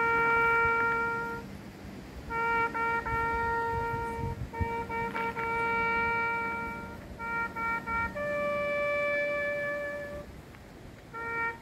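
Solo trumpet playing a slow military honours call: long held notes, most on one pitch, with short breaks between them and a higher note held for about two seconds near the end.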